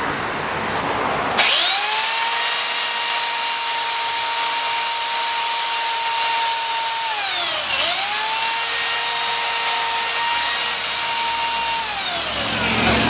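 Electric chainsaw motor spinning up with a rising whine, running at a steady high pitch, winding down, then started again and run before winding down a second time.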